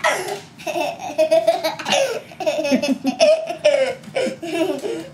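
A child laughing hard, in many short, high-pitched bursts.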